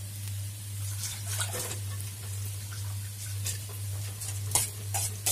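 Spiced potatoes frying gently in an oiled pan: a soft sizzle with scattered crackles, over a steady low hum.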